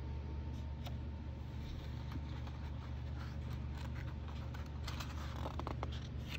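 Paper page of a large hardback book being handled and turned, rustling a little after five seconds in, with a few faint clicks of handling before it, over a steady low hum.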